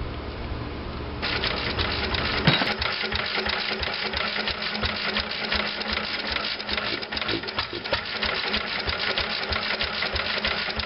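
International Harvester Model M flywheel engine running steadily, a fast even mechanical clatter that comes in abruptly about a second in, with one louder knock a moment later.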